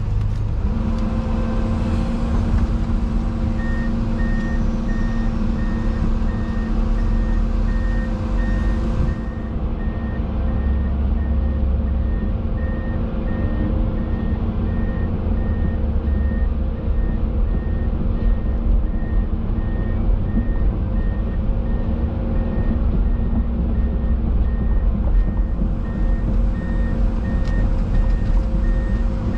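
Heavy diesel engines of a concrete mixer truck and a 20-tonne excavator running steadily, with a reversing alarm beeping about once a second starting a few seconds in.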